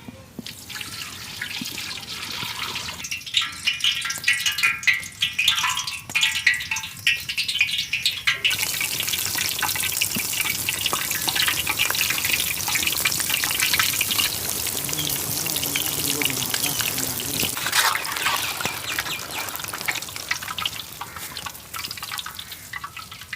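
Cold-pressed sesame oil being poured in a steady stream, a continuous trickling hiss, preceded by a few seconds of knocks and handling of the vessels.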